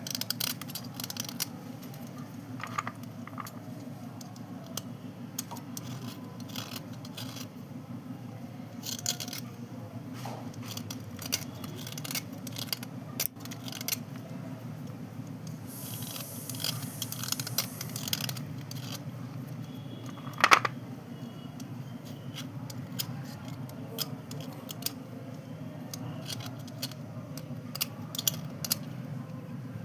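Pieces of white slate pencil clicking, tapping and scraping against each other as they are handled, with one louder sharp click about two-thirds of the way through. A steady low hum runs underneath.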